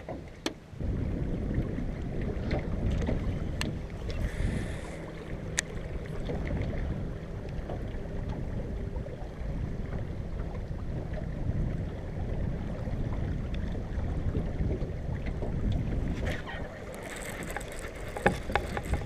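Steady low rumble of boat noise mixed with wind on the microphone, starting suddenly about a second in, with a few light clicks and taps over it.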